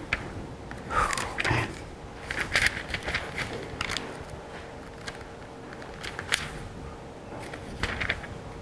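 Bible pages being turned and handled at a pulpit microphone: a series of short paper rustles and crackles over a faint steady hum.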